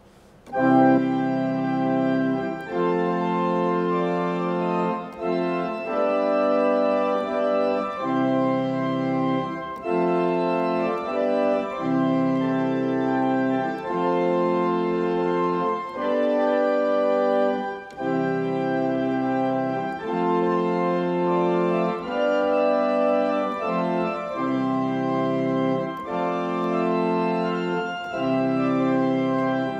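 Church pipe organ playing a hymn in full sustained chords, starting about half a second in, with brief breaks between phrases.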